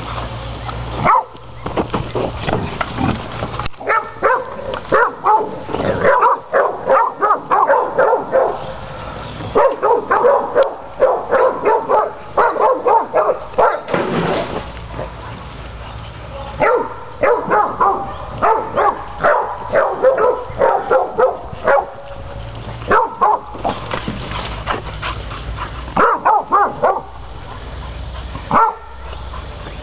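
Catahoula cur dog barking at hogs to hold them at bay: runs of fast, repeated barks broken by short pauses.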